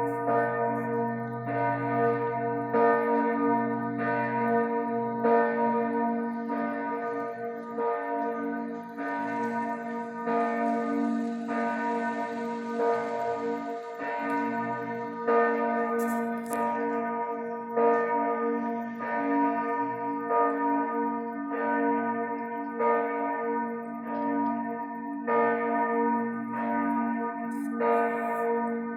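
Church bells ringing: smaller bells are struck in a quick, steady rhythm over the sustained hum of larger, deeper bells.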